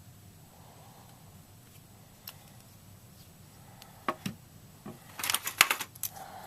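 Small plastic parts and packaging being handled: a few separate clicks, then a short burst of rapid clicking and crinkling about five seconds in.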